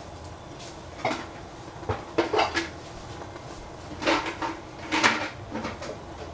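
Kitchenware being handled: dishes and utensils clink and clatter in four short bursts, the loudest about four and five seconds in.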